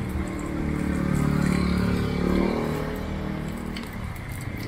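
A motor vehicle's engine passing close by: it grows louder, rises in pitch as it speeds up about two seconds in, then fades away.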